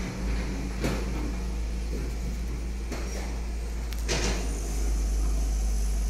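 Handling noise from a sheet of PTFE-coated fibreglass mesh being moved and lifted by hand over cardboard: a few short rustles and knocks, the strongest about four seconds in, over a steady low rumble.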